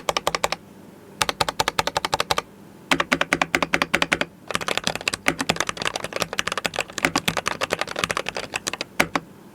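Keychron V1 mechanical keyboard with a brass plate, Gateron G Pro red linear switches and PBT keycaps, typed on in quick runs of keystrokes, about ten a second, with short pauses between runs and a few single key presses near the end.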